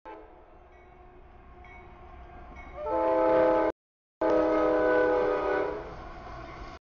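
Freight locomotive's multi-note air horn blowing for the grade crossing as the train approaches. It starts quieter, comes in loud about three seconds in as long blasts, and fades near the end.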